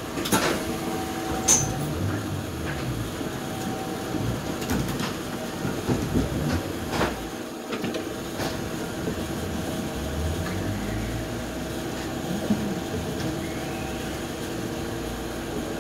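Inside a Toronto streetcar: a steady electric hum and rumble, with a few sharp clacks of the wheels over the rails.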